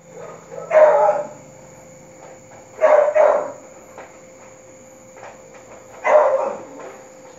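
Shih Tzu barking: three short bouts of barking a few seconds apart, the middle one a quick double bark.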